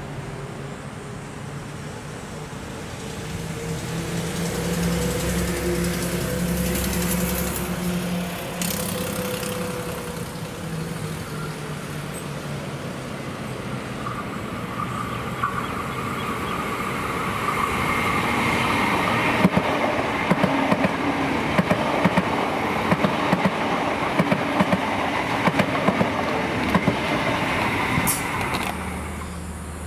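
Hunter class diesel railcar running: a steady engine drone as it approaches, then passing close with a run of sharp, regular wheel clicks over the track and a louder rushing rail noise, ending abruptly near the end.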